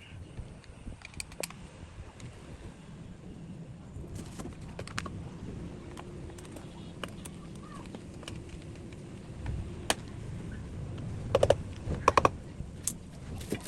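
Scattered small clicks and light knocks of gaming chair parts being handled and fitted during assembly, over a low steady rumble, with a few sharper knocks near the end.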